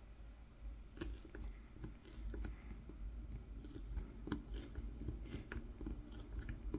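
The tip of a Mora 106 carving knife cuts fine lines into a wooden spoon for kolrosing. It sounds as a faint, irregular series of short, small cuts in the wood.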